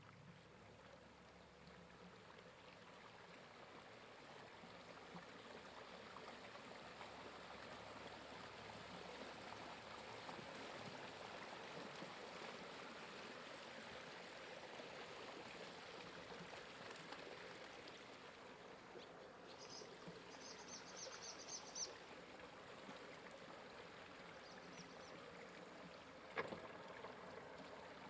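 Faint steady rush of water from a slowly moving rigid inflatable boat, swelling a little mid-way. About twenty seconds in comes a brief run of high chirps, and near the end a single sharp knock.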